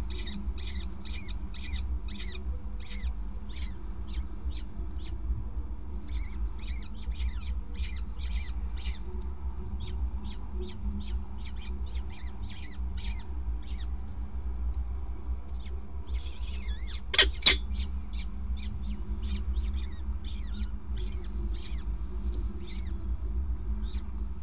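Peregrine falcon chicks begging with short, high calls repeated about three times a second while an adult feeds them, pausing briefly past the middle. Two louder, sharper sounds come about two-thirds of the way through, over a steady low rumble.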